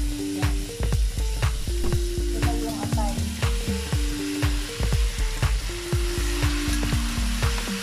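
Background music with a steady deep drum beat and held synth notes, over chicken livers and gizzards sizzling in a frying pan as they are stirred.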